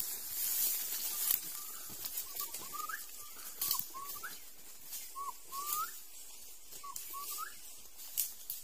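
A thin two-note whistle repeated about five times, each a short dipping note followed by a quick upward glide, over the crackle and crunch of footsteps in dry leaf litter.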